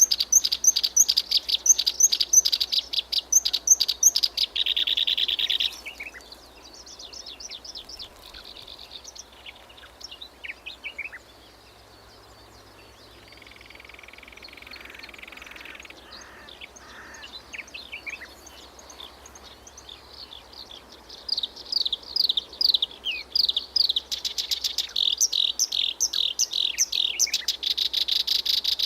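Kerak basi (reed warbler) singing: a loud, rapid chattering song at first, then quieter scattered notes, and from about two-thirds of the way in another loud, fast run of quick sliding notes.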